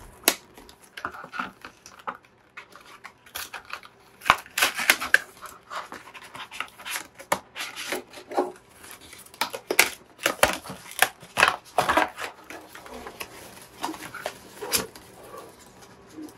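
Stiff clear plastic clamshell packaging being pried open and handled, with irregular crackling, snapping clicks and rustling of plastic and its card insert as the mouse is pulled out. The crackles come in uneven clusters, busiest around the middle.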